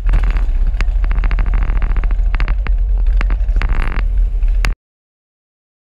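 Motorcycle engine running, picked up by an action camera mounted on the bike: a heavy low rumble with scattered crackles, cutting off suddenly near the end.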